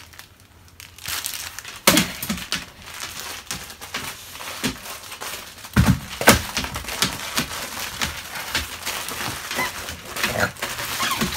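Crinkling and rustling with irregular knocks and thumps, the loudest about two and six seconds in.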